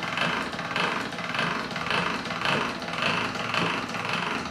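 Hand-cranked pasta roller turning as a sheet of fondant is fed through its rollers, a rhythmic grinding pulse a little under twice a second with each turn of the crank.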